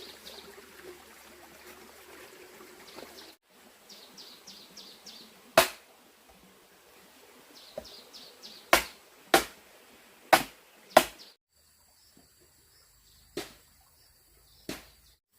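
About seven sharp knocks at irregular intervals, like blows of a hand tool, the loudest bunched together in the middle. Between them come short runs of high, quick chirping.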